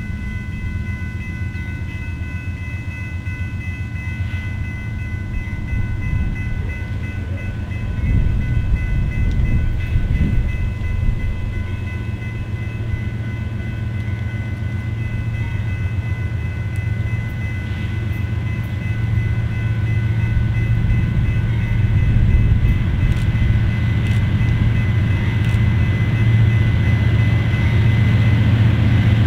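Approaching diesel locomotive, a BNSF GE ES44DC, with its engine's low rumble growing steadily louder as the train closes in.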